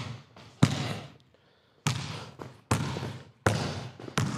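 Basketball being dribbled on an indoor court floor: five slow bounces, about one a second, each ringing on in the large gym.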